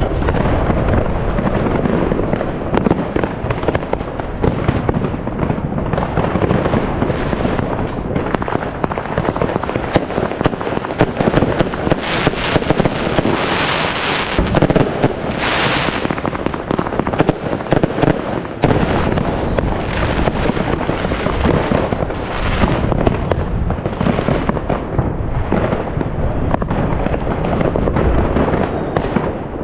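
Aerial firework shells bursting one after another in a dense, continuous barrage of booms and crackle. About halfway through, a stretch of bright hissing crackle rises over the bangs for a few seconds.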